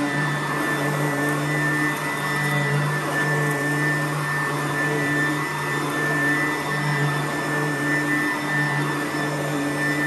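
Sanitaire upright vacuum cleaner running steadily as it is pushed back and forth over carpet: a constant motor hum with a thin high whine.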